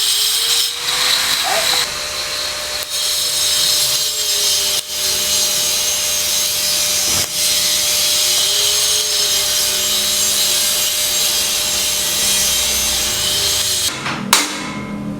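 Power saw cutting steadily, its motor pitch drifting slowly up and down under load. It stops near the end, followed by a sharp knock and a few clatters.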